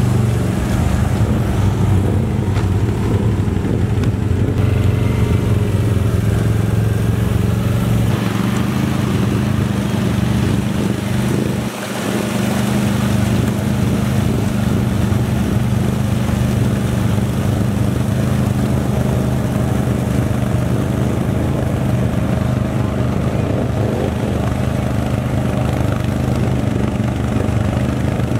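Can-Am Outlander XMR ATV's V-twin engine running steadily, with a brief drop in level about twelve seconds in.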